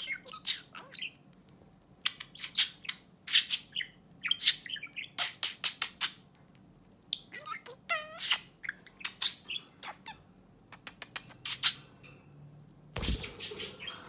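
Budgerigar chattering to itself: phrases of sharp chirps, clicks and short warbled whistles that glide in pitch, with brief pauses between. A single thump near the end.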